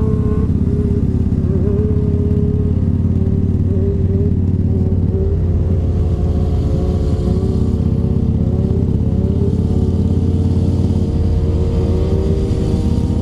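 Harley-Davidson cruiser's V-twin engine running steadily under way, with a steady low drone and a slightly wavering tone above it.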